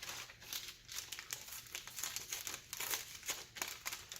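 Packing material crinkling and rustling as it is handled and unwrapped, in a quick, irregular run of crackly rustles.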